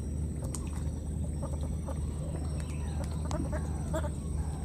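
A few short, pitched animal calls, most of them near the end, over a steady low hum and a thin, high steady whine.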